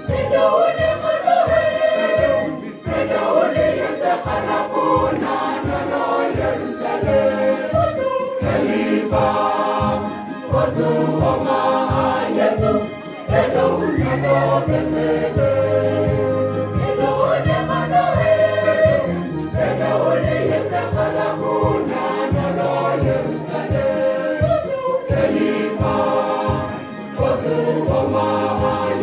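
Church choir singing a Christmas carol, many voices together over a steady low beat.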